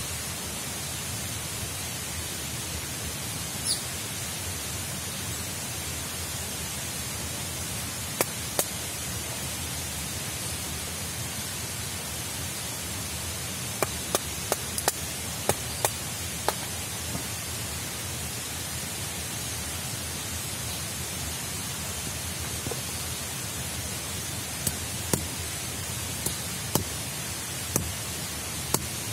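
A steady hiss throughout, with sharp wooden clicks and knocks from split sticks being laid on a campfire under a kettle: a pair about a third of the way in, a quick cluster around the middle, and a few more near the end.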